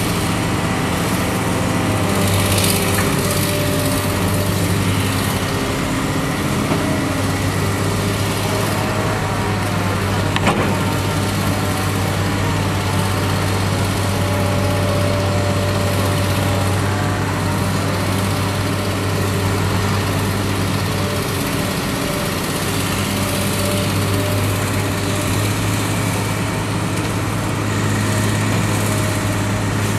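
Diesel engines of tracked hydraulic excavators, a Komatsu and a Daewoo, running steadily under load as they dig and swing soil into a dump truck. A single sharp knock about ten seconds in.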